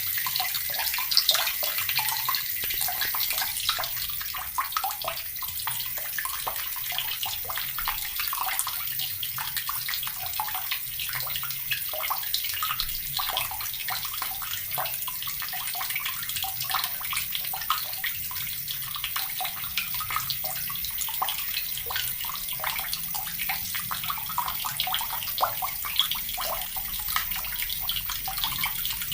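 Water tap running steadily, its stream splashing with a dense patter of small splashes and drops.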